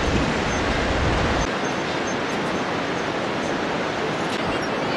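Steady rushing of the Bhote Koshi river's rapids far below in the gorge, heard as an even hiss. Low wind rumble on the microphone drops away about a second and a half in.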